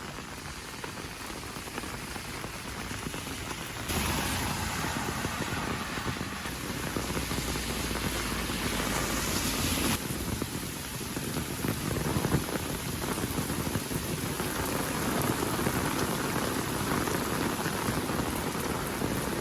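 Heavy rain falling steadily, an even wash of noise that swells louder for several seconds about four seconds in, then eases back.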